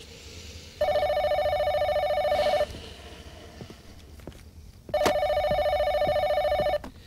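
Telephone ringing twice, each ring a trilling tone about two seconds long with a pause of about two seconds between them.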